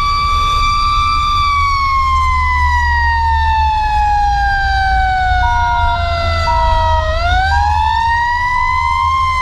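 Fire engine siren sliding slowly down in pitch for several seconds, then rising again about seven seconds in, over the steady low rumble of the moving truck.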